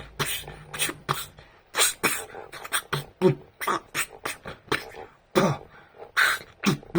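Beatboxing that imitates kung-fu film fight sound effects: a quick, uneven series of sharp mouth-made hits and clicks, a few with a short falling tone.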